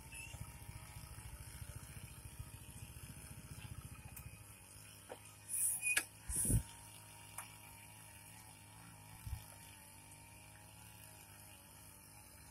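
Backpack brush cutter engines running steadily, faint, as the workers cut grass. About four seconds in, the engine note drops to a lower, fainter hum. A couple of short loud rustles or knocks come near the middle.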